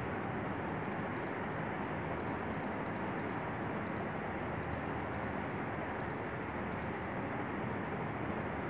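Canon imageRUNNER 2545 photocopier touch panel beeping at each press of the arrow key while scrolling through the settings menu: about a dozen short high beeps at uneven intervals, starting about a second in, over a steady hiss.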